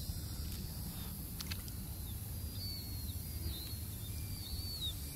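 Outdoor river ambience: a steady low rumble with a few short, high bird chirps from about two and a half seconds in, and a couple of faint clicks about a second and a half in.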